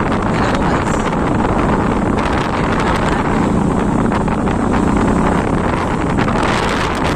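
A motorcycle engine running steadily on the move, under heavy wind buffeting on the microphone from the ride.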